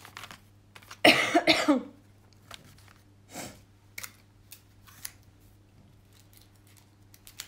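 A person coughing: a short fit of a few coughs about a second in, the loudest thing heard. A quieter breathy burst follows, then faint clicks and rustles of handling.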